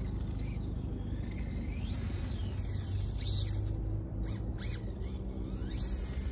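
Radio-controlled cars driving on asphalt: high-pitched motor whine that sweeps up and down in pitch several times as the cars speed up, slow down and pass.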